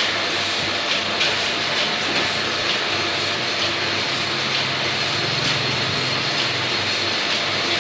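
Large-format banner printer running: a steady mechanical whir with a faint high whine and a light tick roughly once a second as the print-head carriage works across the vinyl. A low hum joins for a couple of seconds in the middle.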